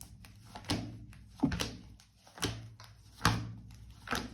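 Tarot cards being put down on a table: five soft knocks, about a second apart.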